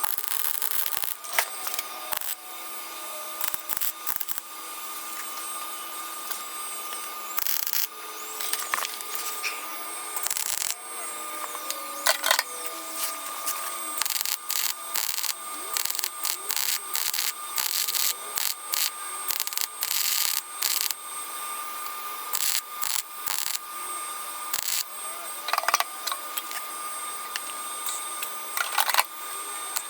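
Metalworking noises on a car body: irregular clusters of sharp clicks, knocks and scrapes over a steady hum.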